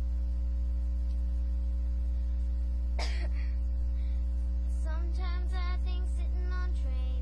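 A girl's short cough-like burst about three seconds in, then a brief sung phrase a couple of seconds later, both over a loud steady low hum.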